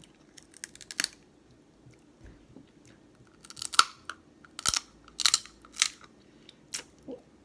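Crab shell being cracked open by hand: a string of sharp cracks and crunches, the loudest clustered in the middle.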